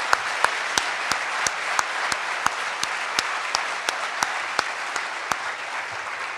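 Audience applauding, with one nearby pair of hands clapping out clearly at about three claps a second. The near clapping stops about five seconds in, and the applause thins slightly toward the end.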